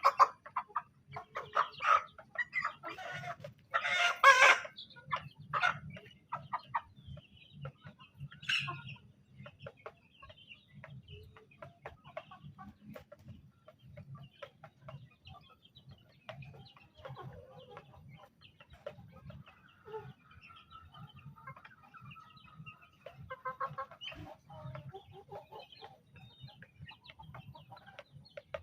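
Chickens clucking and squawking, loud and busy for the first several seconds with the loudest squawk about four seconds in, then softer scattered clucks. The birds are being treated for ngorok, the rattling, snoring respiratory disease of poultry.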